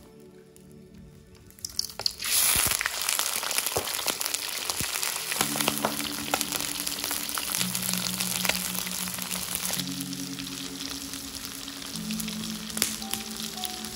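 Shrimp frying in hot oil in an aluminium wok: a loud, crackling sizzle that starts suddenly about two seconds in and keeps going. Soft background music plays underneath.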